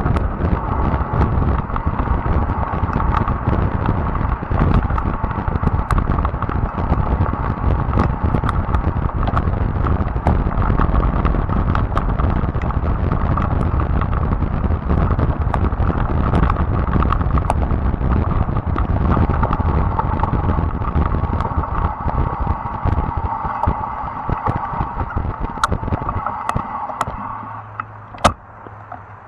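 Fat-tire e-bike riding over a gravel trail: tyre rumble and a scatter of gravel clicks and rattles, with a steady whine. The noise dies down near the end as the bike slows, and a single sharp click follows.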